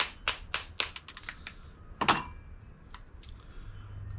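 Cooked crab shell being cracked open: a quick run of sharp cracks, about three a second, then one louder crack about two seconds in. A small bird sings in the background.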